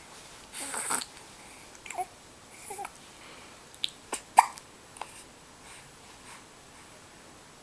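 Baby hiccupping: several short, sharp hiccups spaced irregularly, the loudest about halfway through, after a breathy vocal sound near the start.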